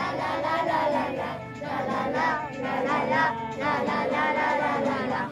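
A group of children and adults singing a song together.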